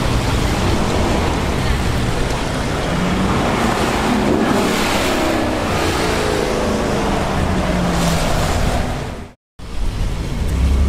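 Cars driving past on a wet road, with tyres hissing through the spray and engine notes rising and falling as a car goes by in the middle. The sound cuts out for a moment a little past nine seconds, then picks up again.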